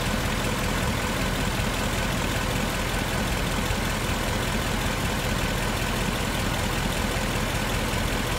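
Ford Mustang GT's 5.0-litre V8 idling steadily at operating temperature, with the electric radiator cooling fans running.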